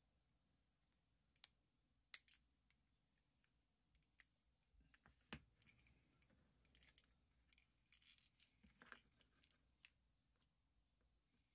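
Faint, scattered clicks and light scraping from hands handling an electric tachometer's small circuit board. There is a sharper click about two seconds in and another a little after five seconds.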